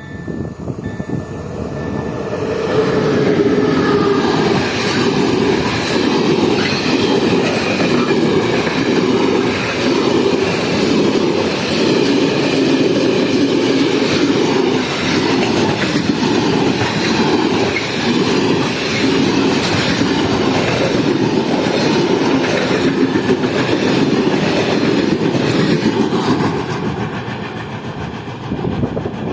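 Freight train of flat wagons hauled by a PKP ET22 electric locomotive passing at speed. Its wheels make a steady rolling rumble with a regular clickety-clack over the rail joints, building up over the first few seconds.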